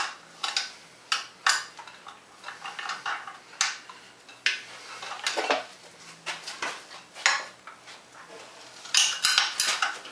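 Metal wrench clinking and clicking irregularly against the bolts and aluminium housing of a 1959 Evinrude Fastwin outboard's lower unit as its mounting bolts are tightened, with a quick run of clinks about nine seconds in.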